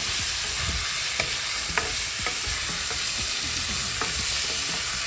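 Sliced onions frying in hot mustard oil in a pressure cooker as they are stirred: a steady sizzle with scattered light taps and scrapes of the spoon against the pot.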